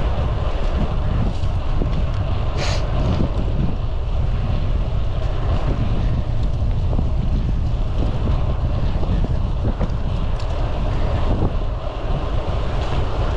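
Wind buffeting the microphone while riding a bicycle: a steady, loud low rumble. There is a brief hiss about two and a half seconds in.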